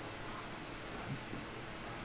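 Steady low hiss of room noise, with a couple of faint, soft knocks about a second in.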